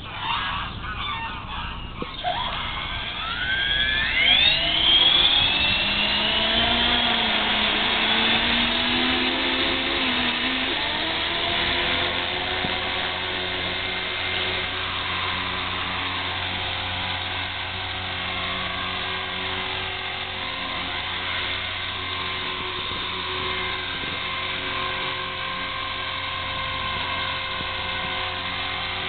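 KDS 450 electric RC helicopter spooling up. About two seconds in, the motor and gear whine rises steeply in pitch for a few seconds, then settles into a steady whine with rotor hum as the helicopter hovers low.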